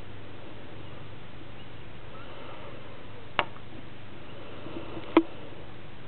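Two sharp clicks a little under two seconds apart, the second louder, over a steady low hiss.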